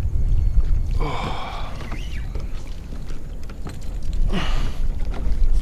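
Wind buffeting the microphone, with two short breathy grunts from an angler fighting a hooked redfish, about a second in and again near the end.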